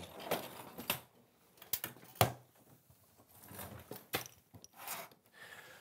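Faint handling noise: scattered clicks and rustles, the sharpest a little after two seconds in.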